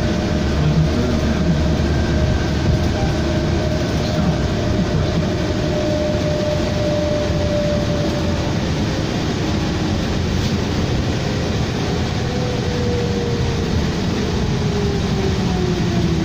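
Cabin noise inside a 2007 New Flyer D40LFR diesel low-floor bus under way: a steady drone of engine and road noise. A thin whine holds steady through the first half, then falls slowly in pitch over the last several seconds.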